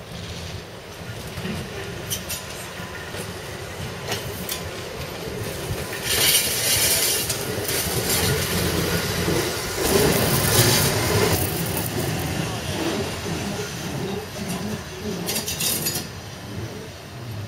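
Historic tram No. 1074 rolling over the points and passing close by, its wheels clicking and clattering over rail joints and switches. The rail noise grows louder, with loud rattling stretches about six and ten seconds in, and drops near the end.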